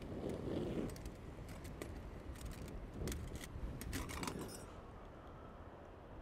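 Light metallic clicks and clinks of a brass Trangia spirit burner and cook kit being handled, over a steady low rumble. The clinking stops about two-thirds of the way through.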